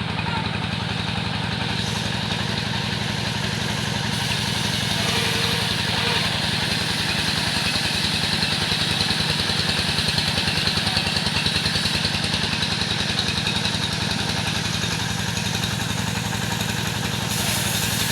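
The engine of a wood-sawing machine running steadily at constant speed, with a rapid even firing pulse and a broad hiss over it.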